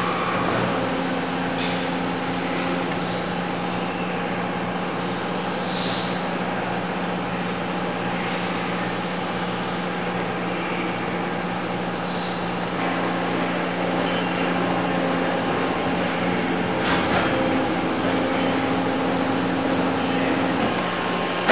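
Steady hum of shop machinery, with a constant low drone and a slightly higher tone that sounds for a couple of seconds near the start and again through the second half. A few faint ticks are heard.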